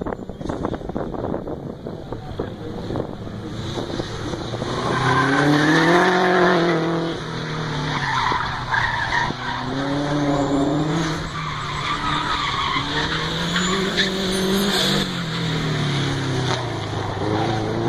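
A 400 hp rally car's engine revving hard and dropping back, again and again, as the driver works through gears and corners, with tyres squealing at times. The revving comes in from about four seconds in and is loudest around six seconds.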